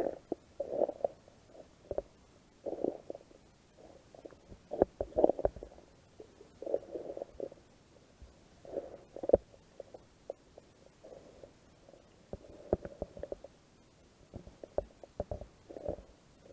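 Muffled water sloshing and splashing in surges about every two seconds, with the odd knock, in a rhythm that fits kayak paddle strokes.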